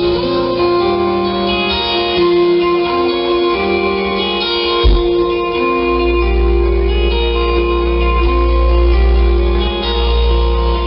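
Live rock band playing an instrumental passage: guitar notes ringing over the band, with a heavy low bass coming in about five seconds in.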